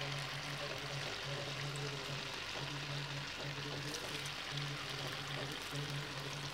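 Batter-coated ripe plantain pieces deep-frying in hot oil: a steady bubbling sizzle with fine crackling. Under it a low hum keeps breaking off and coming back about once a second.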